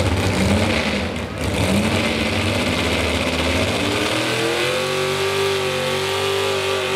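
Supercharged engine of a modified 4x4 pulling truck being revved: two short blips, then the revs climb and hold high and steady as the truck starts its pull.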